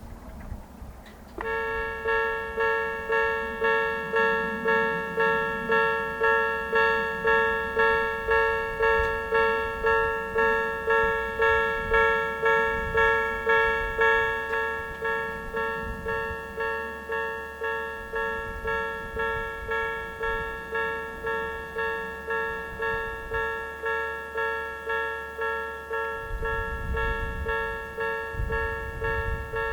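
Odakyu Electric Railway level crossing warning bell, in the tone used at every Odakyu crossing. It starts about a second and a half in and rings steadily at about two strikes a second, a little quieter over the second half.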